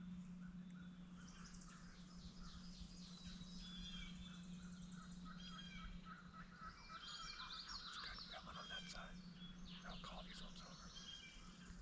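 Faint chorus of small songbirds chirping and trilling, with many overlapping short calls, over a steady low hum.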